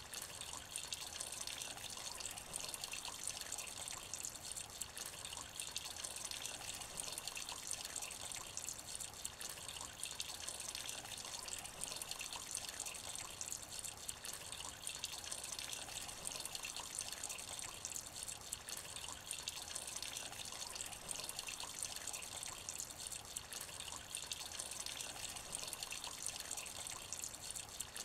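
Light rain falling into a shallow puddle: a steady, even hiss of many small drops splashing on the water, with no let-up.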